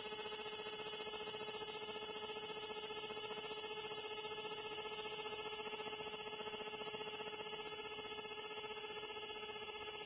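Large brown cicada (aburazemi) giving its long unbroken grating drone, the sustained call it makes while sitting still on the trunk. The high-pitched song is distorted by clipping in the compact camera's recording.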